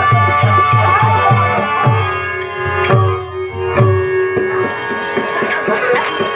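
Live folk-theatre accompaniment of a hand drum and a harmonium. The drum is beaten fast and evenly, about four strokes a second, over held harmonium tones. About two seconds in the steady beat breaks off, leaving a few single strokes, a long held note and some sharp metallic ticks.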